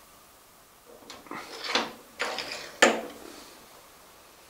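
Metal knocks and scrapes as a Dumore No. 44 tool post grinder is set down by hand onto its mounting disc and threaded rod. A cluster of clunks starts about a second in, with the sharpest knock just before three seconds.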